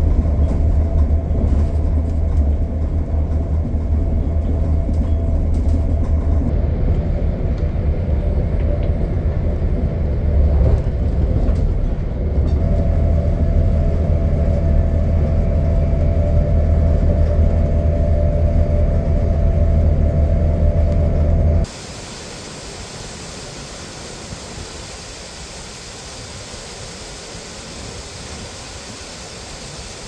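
Steady low rumble and a faint steady drone inside the passenger saloon of a moving diesel multiple-unit train. About two-thirds of the way through it cuts off abruptly to the quieter, even rushing of a small waterfall on a rocky mountain stream.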